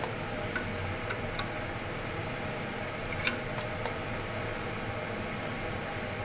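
EMS 7000smz2 vibrating microtome running with its blade oscillating for the Z-alignment measurement: a steady hum with a constant high whine, and a few light clicks.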